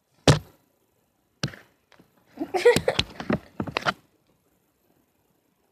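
A sharp knock, another about a second later, then a second and a half of quick clicks, knocks and rustling.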